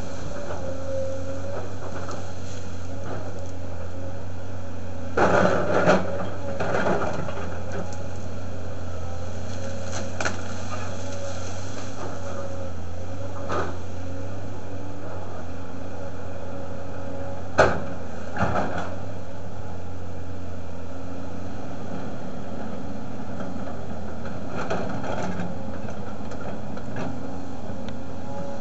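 Volvo tracked excavator's diesel engine running steadily, with a thin higher tone over its drone, while it works trees and stumps with its bucket and thumb. Sudden knocks and cracks break in: a cluster about five seconds in, and a single sharp crack a little past the middle.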